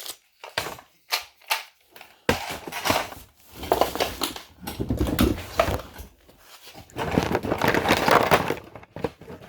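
Small sewing machine parts being handled and rummaged through in a box: a few sharp clicks and knocks, then several seconds of clattering and rustling.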